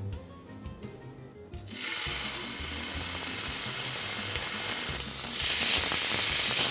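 Oiled chicken breast pieces laid into a hot cast-iron skillet, sizzling as they hit the pan. The sizzle starts suddenly about a second and a half in and gets louder at about five seconds, as the second piece goes in.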